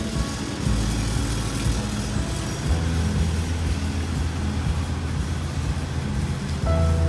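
Street traffic: a low, steady engine rumble from passing road vehicles, including a bus.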